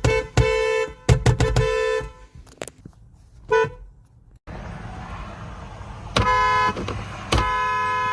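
Korean car horns honking with a two-note blare: a run of short taps and longer honks, then a brief toot. Then, over steady traffic noise, a short honk and a long held honk.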